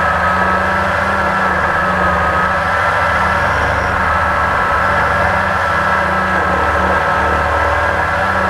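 Blade 350 QX quadcopter's four brushless motors and propellers running in flight, heard from the onboard GoPro: a loud, steady whine that wavers slightly in pitch.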